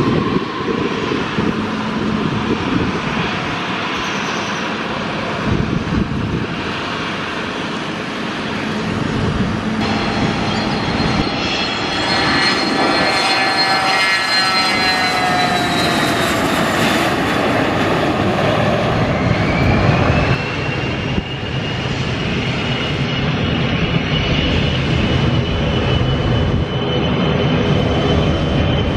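Business jets' turbofan engines running loud and steady. In the middle a high whine falls in pitch; about two-thirds of the way in, a whine rises and then holds steady.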